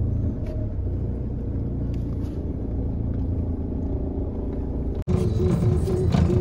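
Mahindra XUV500 pulling away in first gear, a steady engine and road rumble heard from inside the cabin. About five seconds in the sound cuts off for an instant and a louder rumble carries on with a steady tone over it.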